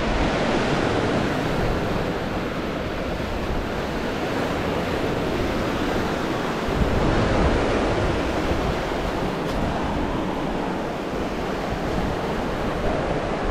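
Lake Michigan surf washing steadily onto the shore, with wind buffeting the microphone.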